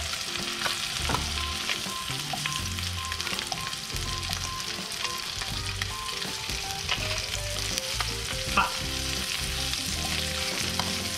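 Thin fish fillets sizzling in melted butter in a nonstick frying pan on high heat, with scattered taps and scrapes of a wooden spatula as they are turned.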